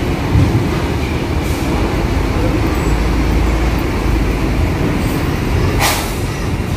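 Heavy diesel engine of an intercity coach rumbling steadily as the bus manoeuvres slowly, with a brief sharp hiss near the end.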